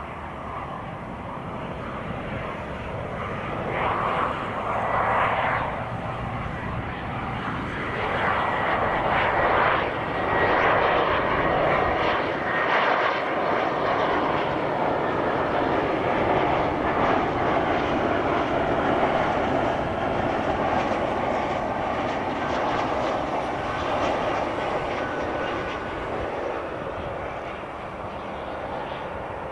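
Bombardier Global business jet's twin rear-mounted turbofans on final approach, passing low: a steady jet roar that builds over the first ten seconds with a faint high whine in it, then slowly fades as the jet settles toward the runway.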